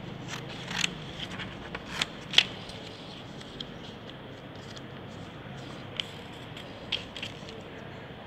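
Sheet of coloured craft paper being handled and cut with scissors: irregular sharp snips and paper crackles, a cluster in the first two and a half seconds with the loudest among them, and a few more near the end.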